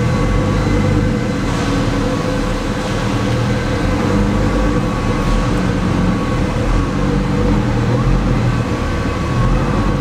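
2018 Ford GT's twin-turbo 3.5-litre V6 running steadily as the car creeps forward at walking pace, heard from inside the cabin.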